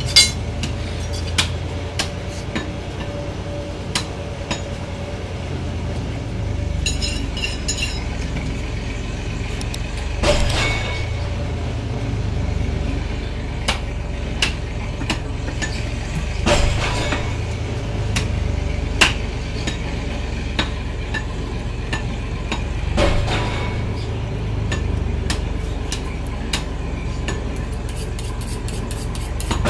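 A butcher's knife working through water buffalo meat on a wooden chopping block, giving scattered sharp clicks and clinks over a steady low rumble, with a few brief louder swells of noise.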